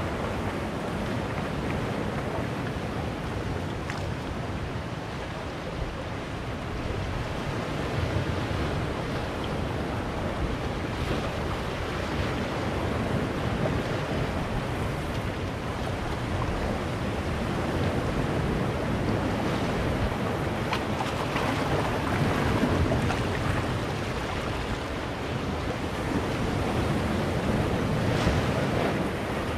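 Sea surf breaking and washing among large boulders on a rocky shore: a continuous rush of water that swells every few seconds as each wave comes in and splashes against the rocks.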